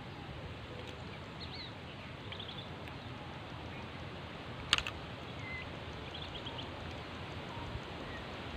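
Outdoor ambience: a steady low rumble of wind on the microphone, with small birds chirping briefly now and then and one sharp click a little under five seconds in.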